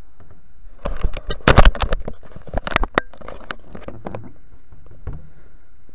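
A rapid clatter of knocks, clicks and scrapes lasting about three seconds, then a few scattered taps: handling noise from the marker, whiteboard and recording device being moved close to the microphone.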